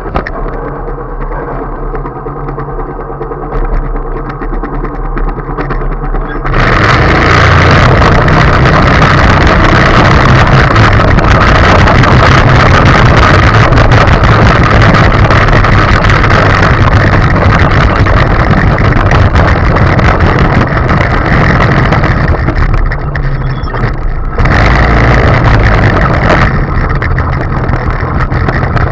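Small go-kart engine idling, then opening up sharply about six seconds in and running hard at high revs. Near the end the revs drop briefly, then pick up again.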